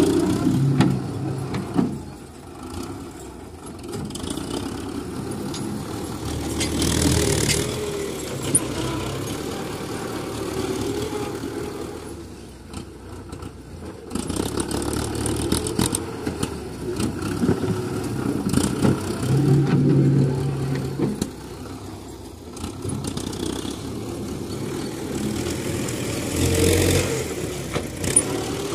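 Tractor diesel engine working a front loader, revving up and settling back again and again as the loader scoops sand and dumps it into a trolley.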